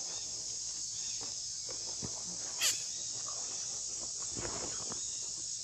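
Steady high-pitched insect drone, with one brief sharp sound about two and a half seconds in and faint scattered rustles.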